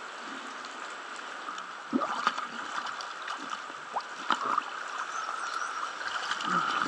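Lake water sloshing and splashing right at the microphone as a diver moves at the surface, with a few sharper splashes about two and four seconds in, over a steady hiss.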